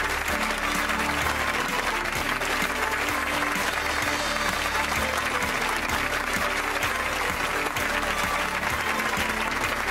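Studio audience applauding steadily, with music playing under the applause.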